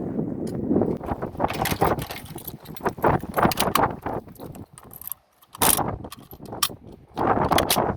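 Metallic clicking, scraping and rattling from a rifle being handled and readied between shots, in irregular bunches with a brief lull partway through.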